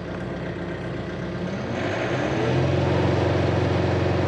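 John Deere 4075R compact tractor's diesel engine running low, then about a second and a half in revving up and holding at a higher, louder speed as the three-point hitch tries to lift a heavy three-bottom rollover plow. A hiss comes in along with the higher engine speed.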